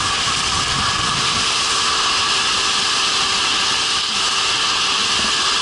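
Boat underway at speed: an outboard motor running steadily under a loud rush of wind and water along the hull.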